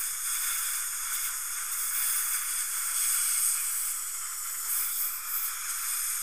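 Steady hiss of dental suction drawing air at the tooth.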